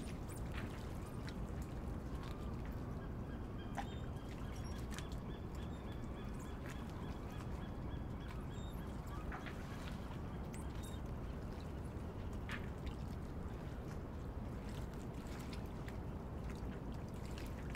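Sailboat cabin ambience: a steady low rumble with scattered faint clicks and brief faint creaks from the boat's fittings.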